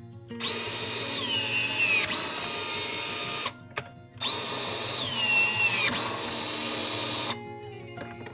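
Power drill run in two bursts of about three seconds each. Its whine drops in pitch as the motor loads down partway through each run, then picks back up. Background music plays underneath.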